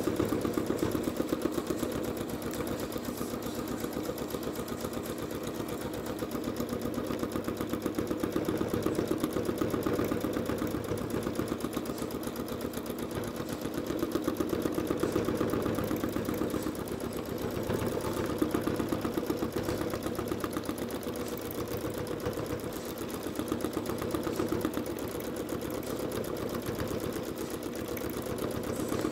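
Janome Skyline S9 sewing machine stitching continuously through quilt layers at a fast, even rhythm. Its speed swells and eases every few seconds as the fabric is guided by hand.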